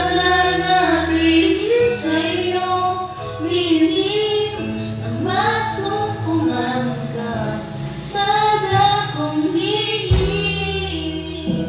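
A woman and a man singing a Tagalog song together, close on a condenser microphone, over a steady instrumental backing track.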